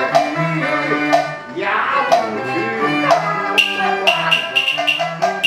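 Cantonese opera accompaniment ensemble playing: a bowed-string melody over sharp percussion strokes about once a second.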